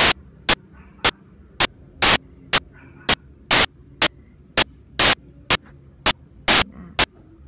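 Rhythmic buzzing bursts of GSM radio interference, about two a second, over a low hum. This is the typical sound of a mobile phone picking up an incoming call right beside the recording device.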